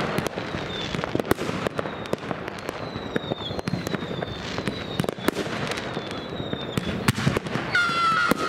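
New Year's Eve fireworks: rockets and firecrackers going off in frequent sharp bangs and crackles, with several thin high whistles falling slightly in pitch, and a louder whistle starting near the end.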